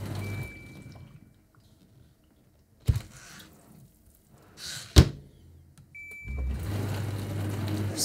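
HAVA R01 compact countertop dishwasher running a wash cycle, a low steady hum with faint water noise. The hum fades out about a second and a half in and comes back near the end, with two sharp clicks in between.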